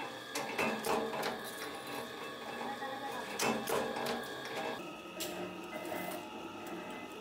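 Flywheel-driven mechanical power press running, stamping metal oil-filter parts with repeated sharp metallic clanks over a steady machine hum. A little past halfway the sound changes to lighter clinks of small metal parts being handled.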